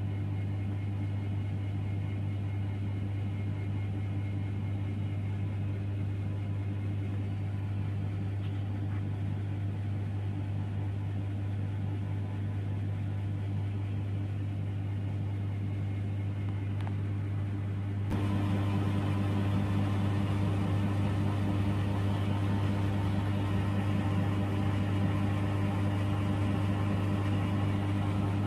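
Chiller compressor running with a steady low electrical-mechanical hum. About eighteen seconds in it becomes louder and brighter, with more high-pitched mechanical noise over the hum.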